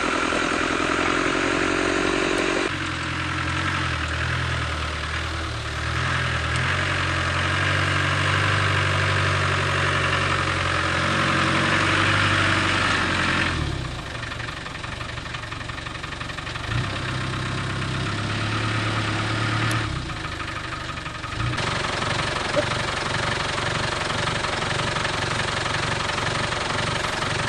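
Engine of a tracked Land Rover running, its pitch and loudness shifting abruptly several times over the stretch.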